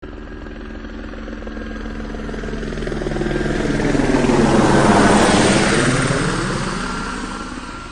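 An aircraft flying past: a steady engine drone that swells to its loudest about five seconds in, drops in pitch as it passes, then fades away.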